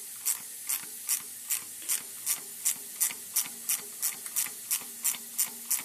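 Ratcheting wrench clicking in a steady rhythm, about two to three sharp clicks a second, as it backs off the nut on a bolt-on valve spring compressor. Backing the tool off lets the valve spring retainers rise so the keepers seat.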